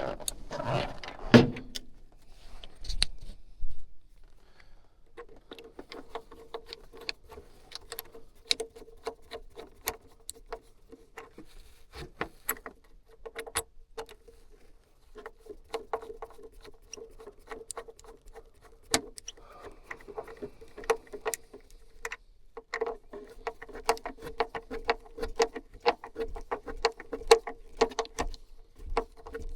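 Irregular metallic clicks and rattles of hand tools and small metal parts being handled while securing furnace wiring, with a steady hum through much of it that stops briefly about two-thirds of the way through.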